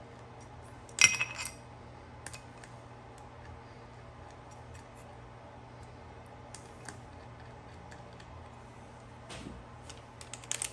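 Small steel bolts and washers clinking against the gearbox and pump housing while the bolts are threaded in by hand: one sharp metallic clink with a brief ring about a second in, then scattered light taps, and a short clatter near the end.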